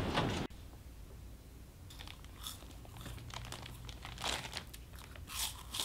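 Crisps being crunched and a foil crisp packet crinkling, in short scattered bursts. A louder sound cuts off about half a second in.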